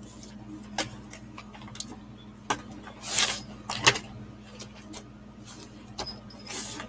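Clear plastic bag of stick-on lure eyes being handled: scattered crinkles, clicks and taps. There is a longer rustle about three seconds in and another near the end, over a steady low hum.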